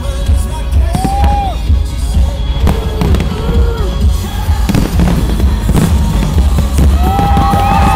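Fireworks bursting and crackling in quick succession, mixed with loud music with a heavy, pulsing low end.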